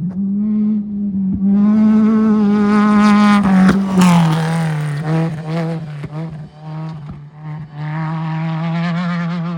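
Off-road race vehicle's engine running hard at high, nearly steady revs, with a rush of noise over it that is loudest about four seconds in and again near the end. The level briefly drops a couple of times in the middle.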